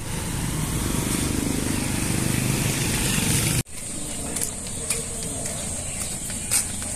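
Outdoor street background: a steady rush of noise that cuts off abruptly about three and a half seconds in. A quieter street background with a few faint ticks follows.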